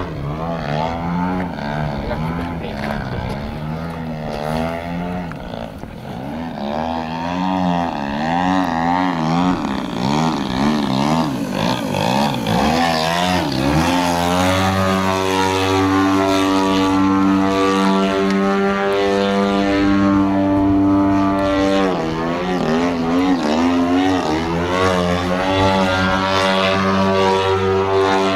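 Engine and propeller of a 35% scale Aeroworks Extra 260 radio-controlled aerobatic plane in flight. For the first half its pitch keeps rising and falling with the passes and throttle changes. About halfway through it settles into a steady high-throttle drone, dipping briefly near three-quarters of the way.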